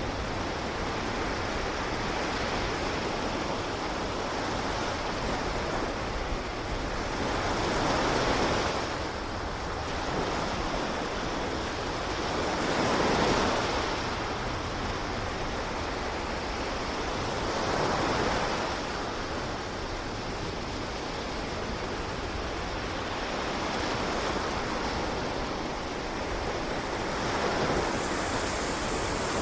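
Ocean surf: a steady rush of waves with four louder swells as waves break.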